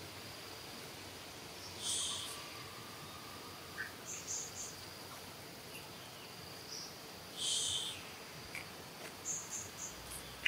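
Insects buzzing steadily in a high, even drone, with two short, shrill high calls about two seconds in and again about seven and a half seconds in, and a few faint chirps between them.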